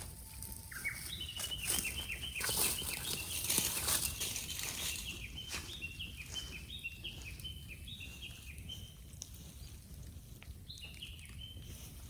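A bird calling in a long series of short, high, down-slurred chirps, with a pause and a brief second burst near the end. Behind it a bamboo bonfire crackles with scattered pops and a hiss.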